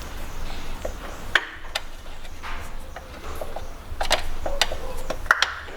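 Scattered sharp plastic clicks and light knocks as the plastic dust cap is unclipped from the alternator's overrunning clutch pulley, with hand tools handled between; the loudest clicks come about a second and a half in and near the end.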